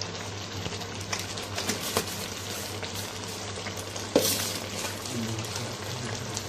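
Half-boiled chicken pieces frying with a steady sizzle in a non-stick wok, while a metal spatula knocks and scrapes against the pan a few times, most sharply about four seconds in.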